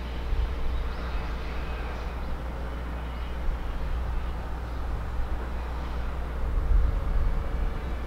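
Shipyard ambience: a steady low rumble with a faint, steady mid-pitched hum under it, swelling briefly about seven seconds in.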